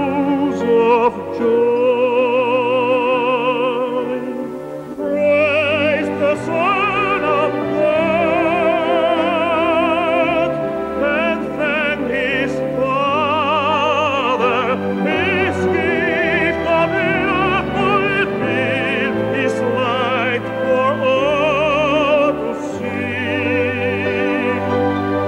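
Operatic solo singing with strong vibrato over an orchestral accompaniment, with long held notes and a short break in the voice about four seconds in.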